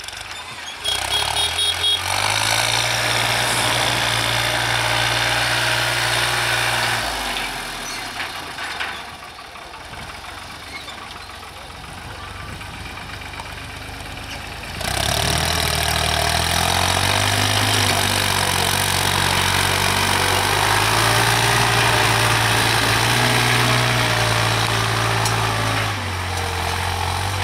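New Holland TT55 tractor's diesel engine running while it pulls a cultivator through the field. The drone drops quieter for several seconds in the middle, then comes back louder with its pitch stepping up and down.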